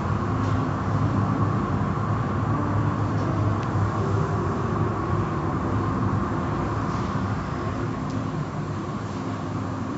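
Automatic car wash tunnel running, heard through the glass: spinning cloth brushes, motors and water spray make a steady mechanical din with a low hum.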